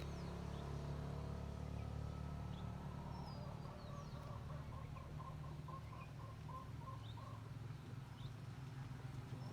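Birds chirping, with a run of short repeated calls in the middle, over a steady low engine rumble.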